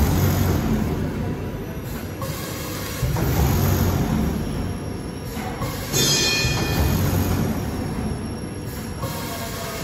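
Multi-lane vertical packing machine running through its fill-seal-cut cycle, with a louder low rumble about every three seconds. A brief high-pitched sound comes about six seconds in.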